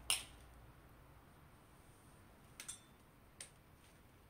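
Quiet room with a few short, sharp clicks: a louder one right at the start, a quick pair about two and a half seconds in, and one more shortly after.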